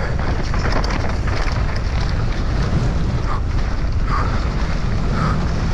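Wind rushing over the helmet camera's microphone, with tyre noise and rattling from an enduro mountain bike descending a dirt trail at race speed.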